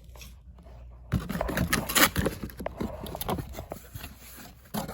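Camcorder packaging and accessories being handled: rustling with a quick, irregular run of light knocks and clicks, starting about a second in and stopping just before the end.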